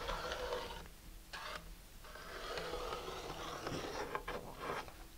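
Pencil lead scraping along a model rocket body tube as fin lines are drawn against an aluminum angle: short strokes at first, one long stroke in the middle, then quick short strokes of writing near the end.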